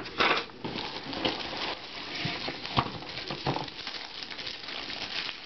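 Cardboard packaging being handled: inserts and flaps scraping and rustling against the box as they are lifted out, with irregular crackles and small knocks.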